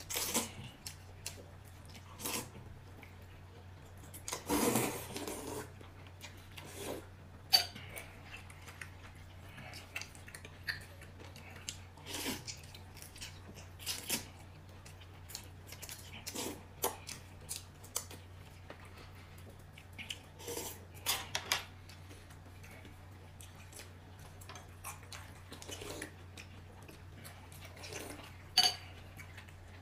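Scattered clinks, taps and brief scrapes of dishes and utensils being handled, over a steady low hum.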